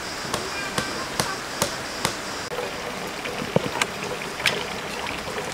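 Running water, with a string of sharp clicks and taps from bamboo canes being handled and lashed together, about every half second at first and then scattered.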